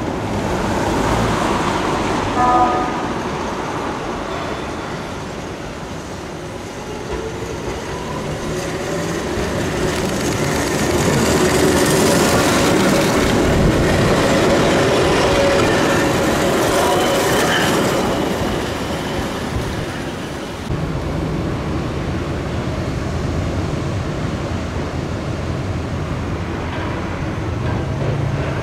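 Keihan Ishiyama-Sakamoto Line two-car electric train approaching and running past close by, its wheels and motors rumbling and rattling loudest about halfway through, with a brief horn toot about two and a half seconds in. After a sudden change near the end, a steadier traffic and distant train hum remains.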